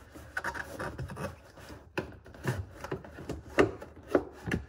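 A new pleated air filter rubbing and scraping as it is slid by hand into a BMW X5's plastic air filter housing, with several sharp knocks as it catches and settles, the loudest a little past halfway through.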